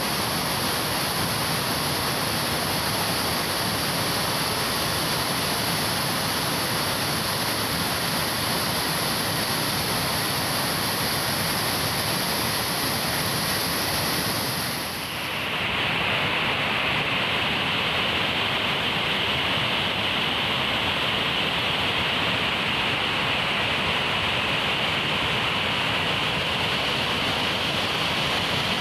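Waterfall flowing heavily, a steady rushing of falling water. About halfway through, the level dips briefly and the rush turns fuller and less hissy, as if one waterfall recording fades into another.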